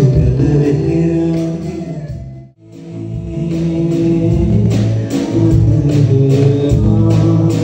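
Live band music with a male singer: sung melody over keyboard, guitar and drums. The sound drops out briefly about two and a half seconds in, then the music comes back in.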